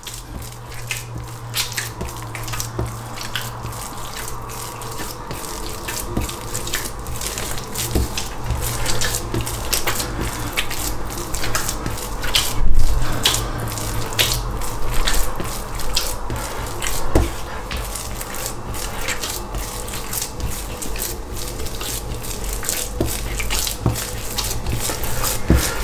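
Wet, oily 75%-hydration pizza dough being kneaded by hand on a work surface: irregular sticky squelches and clicks as the dough pulls at the hands and the table, over a low steady hum. The dough is still absorbing the oil and its gluten has barely begun to develop.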